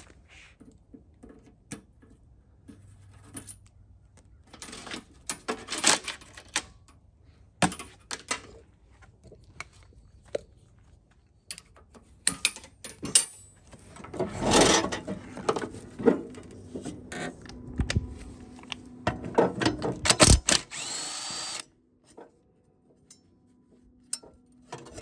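Intermittent clicks, knocks and rattles of tools and metal mower parts being handled, with a few louder, longer noisy bursts and a faint steady hum in the second half.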